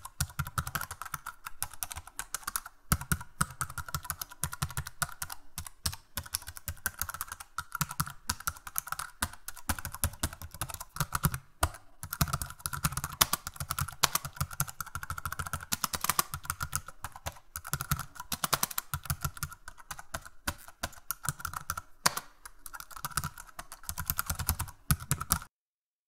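Computer keyboard typing: a fast, unbroken clatter of key clicks, which stops abruptly near the end.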